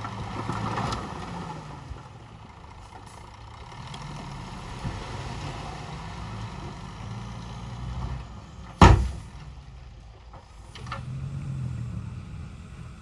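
Heavy diesel earthmoving machinery, dump truck and bulldozer engines, running with a low hum that rises and falls. A single loud sharp bang about nine seconds in, with a couple of fainter knocks after it.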